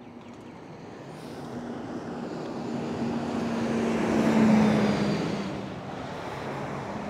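A motor vehicle driving past on the road. Its engine hum and tyre noise grow louder to a peak about four and a half seconds in, then fade away.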